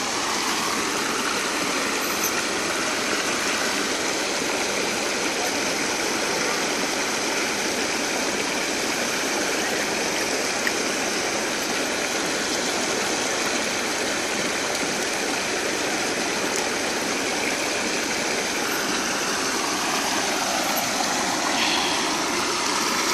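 Steady rush of water pouring through and over a bamboo weir fence across a muddy stream.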